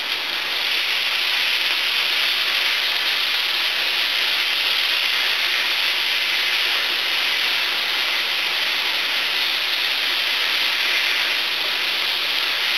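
Eggplant, onions and freshly added mushrooms sizzling steadily in a hot frying pan as the sauce cooks down.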